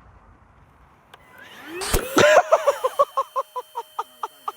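Vacuum cleaner motor switched on: its whine rises in pitch over about a second, then holds steady with a rapid, even pulsing of about four to five beats a second.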